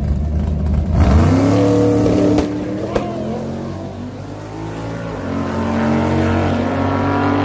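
A sports car launching hard off a drag-strip starting line, its engine note climbing steeply as it pulls away about a second in, then fading as it runs off down the track. A sharp click comes about three seconds in, and an engine note builds again near the end.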